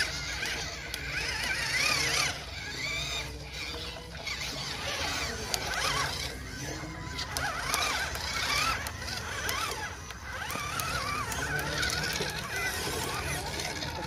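Whining of small RC trucks' electric motors and gearboxes as they crawl through a shallow river, the pitch wavering up and down continuously with the throttle.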